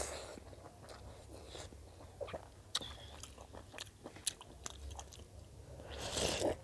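A person eating into a close microphone: soft chewing with scattered crunches and wet mouth clicks, and a louder noisy swell near the end.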